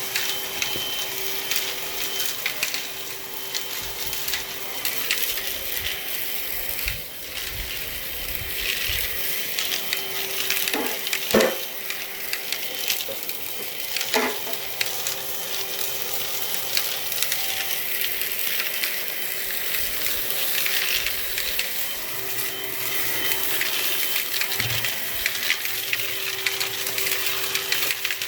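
Hoover Onepwr Blade cordless stick vacuum running with its soft dusting brush attachment: a steady motor hum and airflow hiss, with scratchy brushing as the bristles rub over surfaces. Two short knocks come about eleven and fourteen seconds in.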